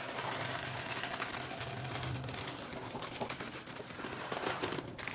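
Dry white rice pouring from a plastic bag into a plastic storage container: a steady, grainy hiss of falling grains.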